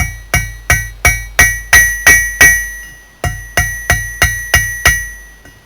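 Blacksmith's hammer striking a steel file-striker on the anvil, about three blows a second, each ringing with a clear bell-like pitch, with a short pause just after the middle. The steel is being forged down and its shoulders rounded off.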